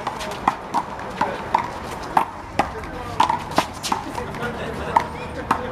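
A one-wall handball rally: the hollow rubber ball is slapped by hands and bounces off the wall and the concrete court, giving a quick, irregular string of sharp pops, each with a short ringing ping, about a dozen in all.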